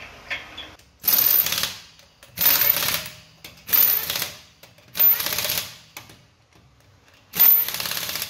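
Impact wrench running lug nuts tight on a truck's front wheel, in five short rattling bursts of under a second each, the last after a longer pause.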